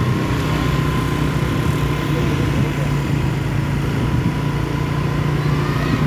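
A vehicle engine running steadily with a continuous low rumble.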